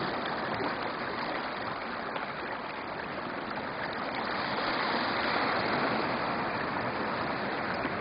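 Shallow water running over stones, a steady rushing and burbling with small splashy ticks that grows a little louder about halfway through.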